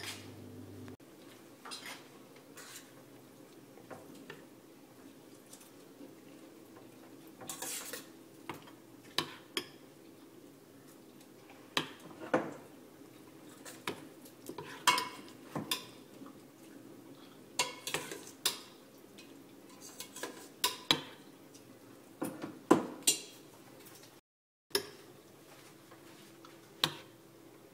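A metal spoon clinking and scraping against a ceramic bowl and baking dish while thick glaze is stirred and spooned out, with irregular sharp clinks over a low steady hum. The sound cuts out briefly about three-quarters of the way through.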